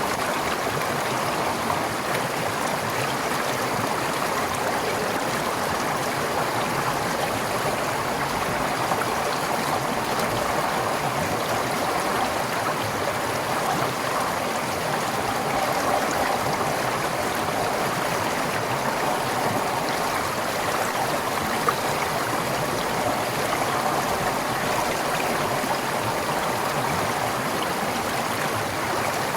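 Forest stream flowing steadily over rocks, a continuous rushing and gurgling of water.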